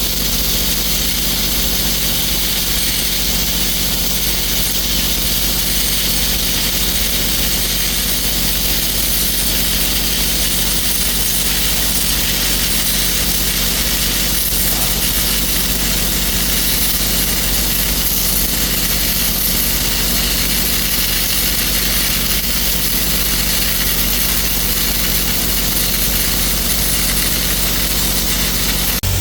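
Stick-welding arc burning steadily with a 3/16 inch 6010 rod: a continuous crackling hiss over the steady hum of an engine-driven welder running under load. The arc breaks off near the end.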